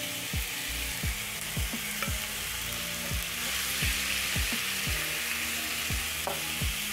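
Marinated chicken pieces sizzling as they fry in hot oil in a pan; the sizzle grows louder about halfway through. Background music with a steady beat plays underneath.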